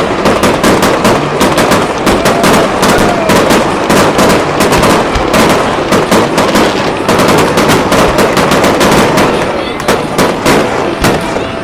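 Fireworks barrage: a dense, rapid string of loud bangs and crackling reports, thinning out near the end.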